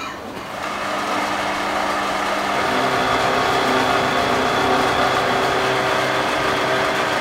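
Belt-driven noodle-cutting machine running as a sheet of egg-noodle dough feeds through its cutting rollers, a steady mechanical hum and whir. It swells up within the first second, then runs evenly.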